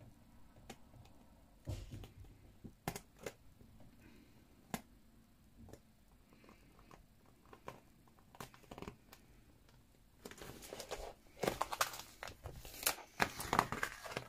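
Paper and card being handled while sheets are glued together: scattered light taps and clicks, then from about ten seconds in a denser stretch of rustling and rubbing as the pieces are lined up.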